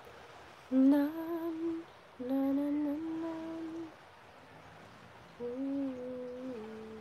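A woman humming a slow tune in three held phrases, the last one stepping down in pitch.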